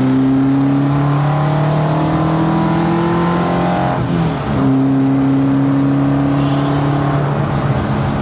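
Race-tuned BMW 2002's four-cylinder engine heard from inside the cabin, loud and revving under hard acceleration. Its note climbs steadily, breaks briefly about four seconds in and comes back lower, then climbs again and eases off near the end.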